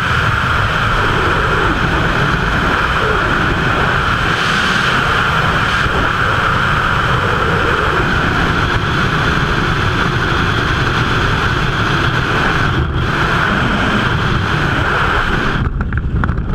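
Freefall wind rushing over the microphone, loud and steady. Near the end it drops away abruptly as the parachute opens and the fall slows.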